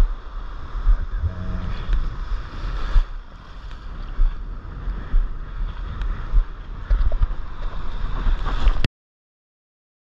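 Wind buffeting an action camera's microphone at water level, over the sloshing and fizzing of broken surf around a paddleboard. The sound cuts off suddenly near the end.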